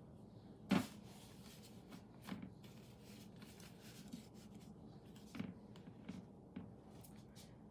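Hands laying a raw pizza crust onto a metal pizza pan: a sharp knock under a second in, then soft rubbing and a few light taps as fingers nudge the dough into place.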